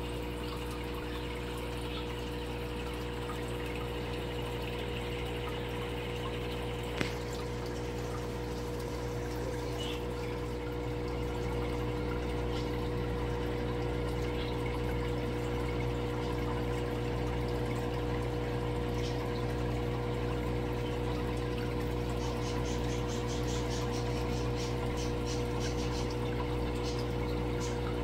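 Aquarium sponge filter bubbling steadily as air streams up its lift tube, over a constant hum. A single sharp click about seven seconds in.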